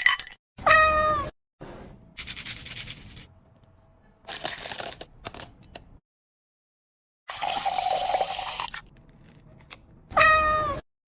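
A cat meowing: two short meows, about a second in and again near the end, each sliding slightly down in pitch, with short patches of noise between them.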